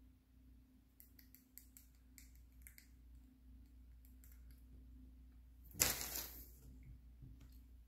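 Faint clicking and scraping of a small metal pick at the teeth, then a loud, sharp breath blown out through pursed lips about six seconds in.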